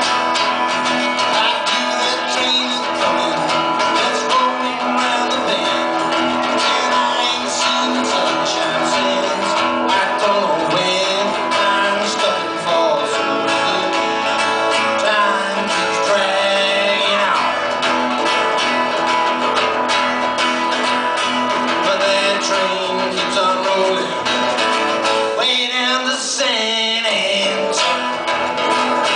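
Acoustic guitars strummed and picked in a live band performance.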